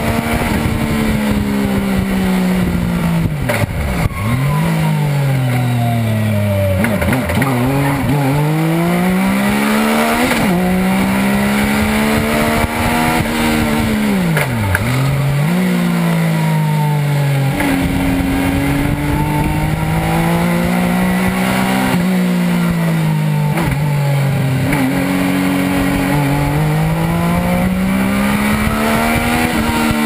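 Legends race car's Yamaha four-cylinder motorcycle engine heard from inside the cockpit on track, its pitch climbing and falling again and again as the car accelerates and slows through the corners. The pitch drops sharply about four, seven, ten and fifteen seconds in.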